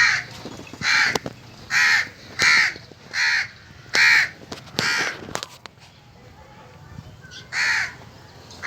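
A bird cawing over and over: about seven short harsh calls in quick succession, a pause, then one more call near the end.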